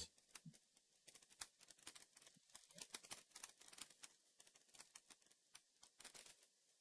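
Faint, irregular small clicks and taps of plastic LEGO minifigure pieces being handled and fitted together.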